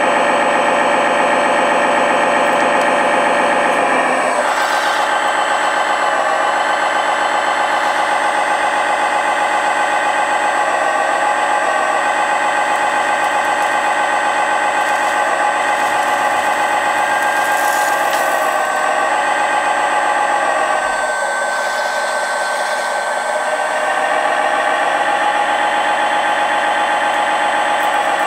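Electric hydraulic pump of a 1/14-scale Lesu ET30H RC wheeled excavator whining steadily as the boom and bucket are worked, its tone shifting a couple of times as the load on the hydraulics changes.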